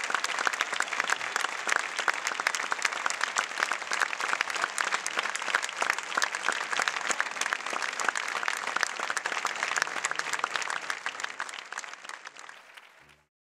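Theatre audience applauding: dense, steady clapping that fades out near the end.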